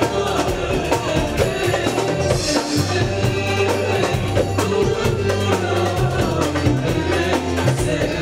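Live pop concert music: a woman singing into a microphone over a band with drums and bass.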